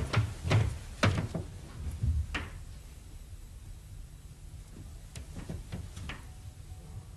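A woman's high-heeled footsteps across the floor for the first couple of seconds, then a few light taps against a wooden door about five to six seconds in.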